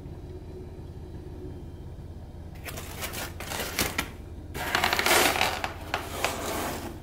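Cardboard pizza box being closed: after a low steady hum, the cardboard scrapes and clicks a few times, then rustles and rubs more loudly for the last couple of seconds as the lid is pressed down.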